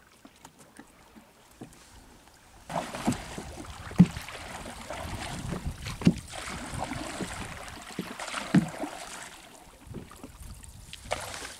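Water sloshing and splashing against a small wooden boat, with several sharp knocks on the wood. It starts suddenly about two and a half seconds in and eases off near the end.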